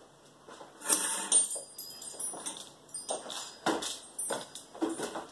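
Household clatter from someone moving about a kitchen: irregular knocks, rustles and light metallic clinks, with a brief high jingling about a second in.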